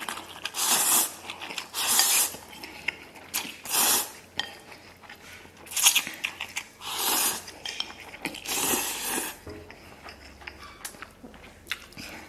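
A person slurping spicy instant noodles off chopsticks in about six long, noisy pulls, with chewing and the click of chopsticks on the bowl between them.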